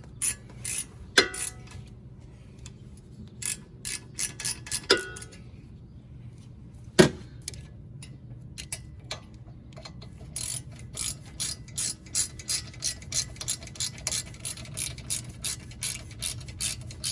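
Hand ratchet clicking as it runs a brake caliper bracket bolt in: a few short groups of clicks, a single louder knock about seven seconds in, then a quick, even run of clicks through the second half.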